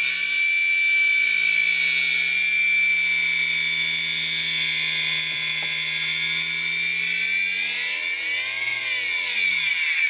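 Capacitor-start single-phase dishwasher pump motor driven far above its normal speed by a variable frequency drive, running with a steady high-pitched whine. Near the end the pitch rises briefly, then falls as the motor is slowed down. The owner thinks its bearings need oil.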